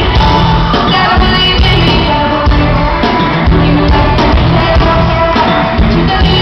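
Live pop concert: a young male lead vocal singing over a loud amplified band, recorded from among the arena audience.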